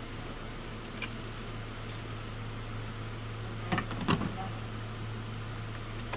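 Clicks and knocks of a car battery's terminal clamp and its red plastic cover being handled and pulled off, the loudest cluster about two-thirds of the way through, over a steady low hum.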